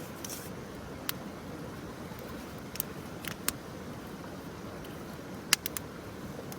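Open wood campfire burning with a steady hiss, with a few sharp pops and crackles from the burning wood, one about a second in, a few around three seconds in, and a quick cluster near the end.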